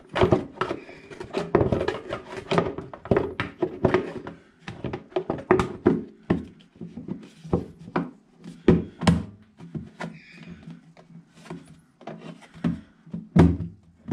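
Toilet cistern lid being set in place and shifted by hand: a steady run of knocks and scrapes, and the dual flush button fitted into the lid, with a loud knock near the end.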